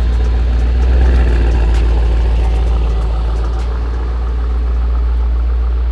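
Mercedes-AMG GT 63 S 4-Door's twin-turbo 4.0-litre V8 idling at the exhaust tips, a steady deep drone with no revs.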